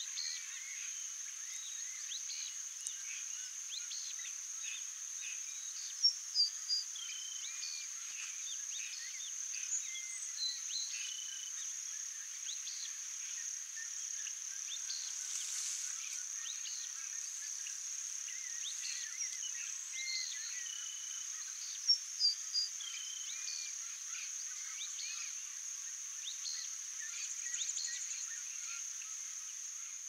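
Grassland sparrow singing twice, each a short phrase of three high notes, about six seconds in and again about sixteen seconds later. A steady high-pitched insect drone and scattered short chirps of other birds run underneath.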